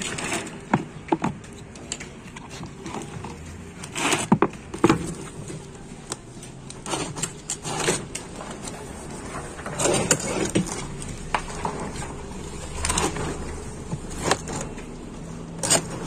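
Hard plastic washing-machine tub being wrenched and wiggled by hand to free it from its shaft, giving a string of irregular knocks, clacks and scrapes, the sharpest about four seconds in and just before the end. It comes off with difficulty because the pulley wheel is jammed in it.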